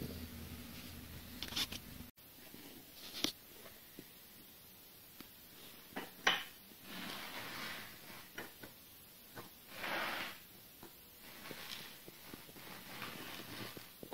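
Scattered metallic clicks and short scraping swishes of a cast-iron bench vise being worked by hand, its sliding handle bar clicking in the bore and the screw turning. A low steady hum in the first two seconds stops abruptly.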